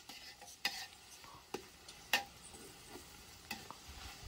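Metal ladle stirring chicken in a large metal cooking pot over a wood fire, with a faint sizzle and a few sharp knocks and scrapes of the ladle against the pot.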